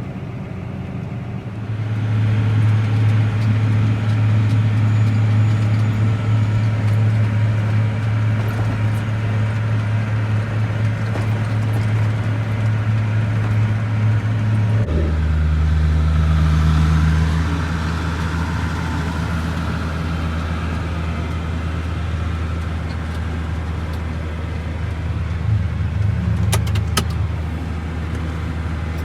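Tractor engine running steadily under load, heard from the driver's seat while pulling a grain cart. It gets louder about two seconds in, then drops abruptly to a deeper, lower note about halfway through.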